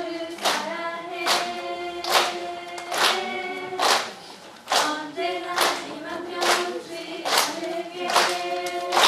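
A small group of voices singing a simple counting song together, with hand claps keeping time about once a second.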